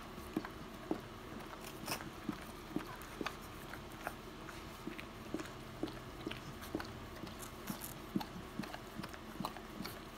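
Rottweiler dam licking and mouthing a just-born puppy to clean it: irregular wet licking and smacking clicks, about two or three a second.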